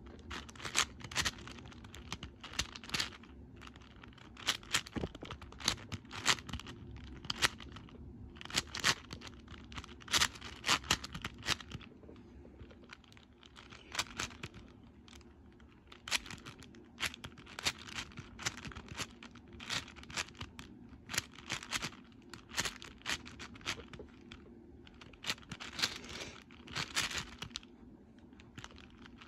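Plastic layers of a QiYi X-Man Shadow V1 M magnetic 6x6 speedcube, lubricated with silk, clacking as they are turned in quick runs of clicks with short pauses between runs.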